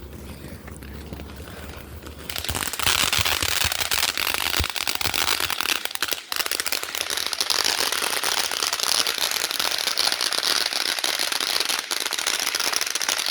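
Consumer firework burning with a dense, steady crackle of many tiny pops. It starts about two seconds in.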